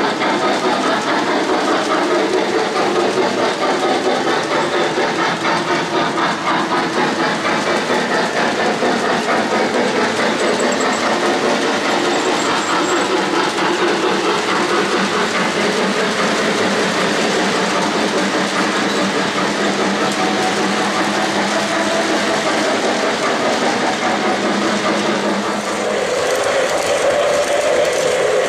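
O-gauge three-rail model freight cars rolling along the track: a steady rumble with fast clicking of metal wheels on the rails.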